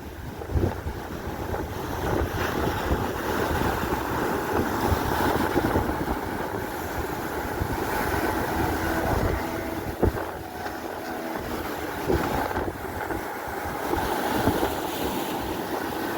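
Wind buffeting the microphone over a small fishing boat under way in rough sea, its engine running and waves splashing against the hull.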